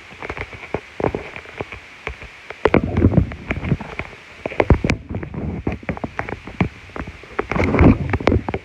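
Close rustling and crackling handling noise, with many irregular sharp clicks and a few louder low rubbing bursts, while a cat is being petted.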